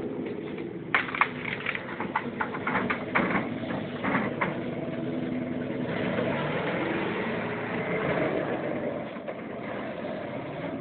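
Engine of a 1946 Ford Burma jeep truck running steadily, with a quick run of sharp clacks and rattles during the first few seconds.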